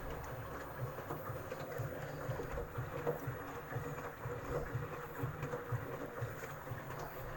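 Samsung Eco Bubble Inverter washing machine running, a steady buzzing hum under an even rushing noise, with the 4C water-supply error cleared and its water-level reading normal.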